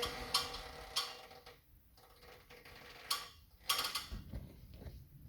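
Several metallic clanks and knocks, near the start, about a second in, and twice a little after three seconds; the first ones ring briefly, as metal parts of the fireplace enclosure are handled.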